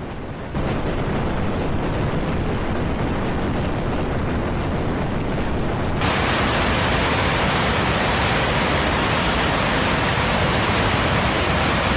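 Steady rushing noise with no distinct events, turning brighter and slightly louder about six seconds in.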